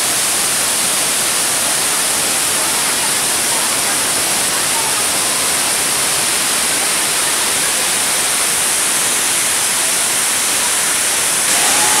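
Waterfall: a loud, steady rush of falling water crashing on rock. The level steps up slightly near the end.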